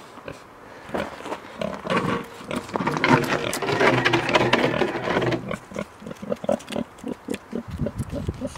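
A pig grunting and slurping with its snout in a rubber pan of warm hay-steeped water. A noisy stretch of snuffling and slurps gives way, about halfway through, to a steady run of short gulps, about four a second.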